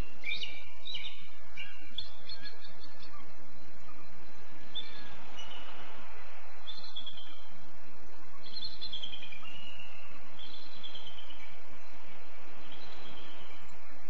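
An eagle calling: high, chittering calls made of quick stuttering notes, crowded together at first and then repeated every second or two.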